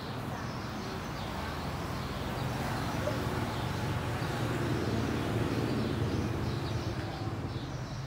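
Low rumble of a motor vehicle engine, growing louder for a few seconds in the middle and easing near the end, with faint bird chirps.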